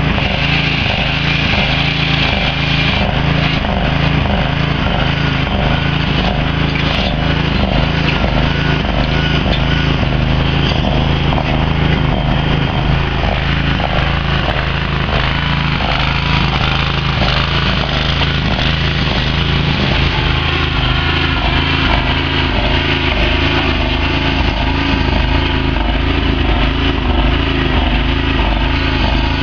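Cub Cadet garden tractor engine running steadily as it pulls a homemade grader blade on its first test run.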